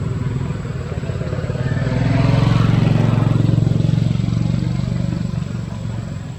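An engine running steadily, swelling louder about two seconds in and easing off again near the end.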